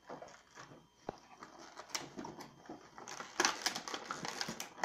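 Action-figure packaging being handled: scattered clicks, crinkles and rustling of cardboard and plastic, growing busier about three seconds in.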